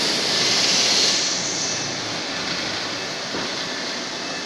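Steady mechanical running noise, an even rush that is loudest about a second in and then settles a little lower.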